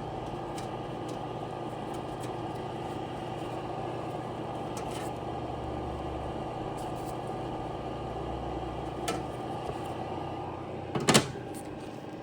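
Food dehydrator's fan motor running with a steady hum. Near the end there are a couple of sharp plastic-like clacks, the loudest sounds.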